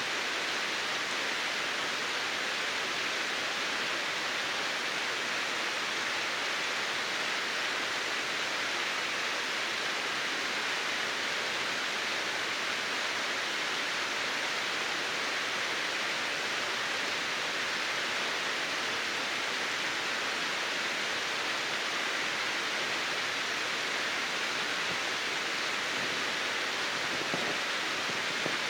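Steady rush of water at a frozen waterfall, an even hiss with no change.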